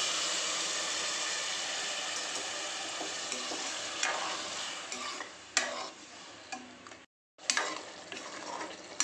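Water poured into hot oil and frying brinjal in an aluminium pressure pan sizzles loudly, then dies down over a few seconds. A metal ladle then scrapes and clicks against the pan as the curry is stirred, broken by a brief gap of silence about seven seconds in.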